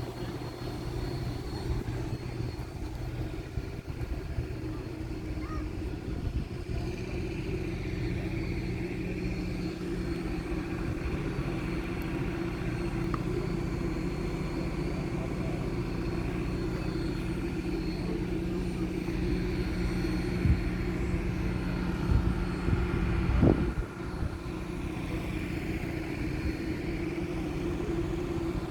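An engine running steadily with a low hum and rumble, with a few brief knocks in the second half.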